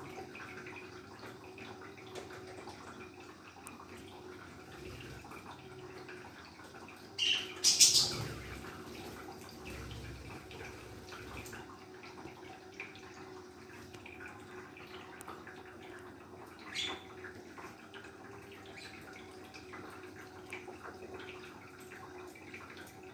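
Baby parrots giving a few short, high squawks, the loudest about seven to eight seconds in and a smaller one near seventeen seconds, over a steady low hum.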